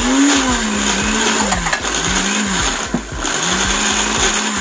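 Electric blender run in short pulses, chopping tomato and red onion: the motor whirs up and winds down again about four times.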